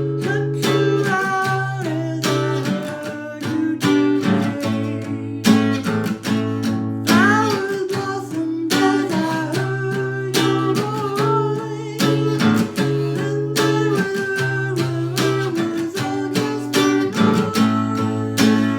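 Music: acoustic guitar strummed in a steady rhythm, with a melody line over the chords and no sung words.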